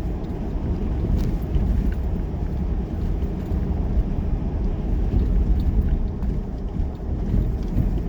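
Steady low rumble with no clear pitch.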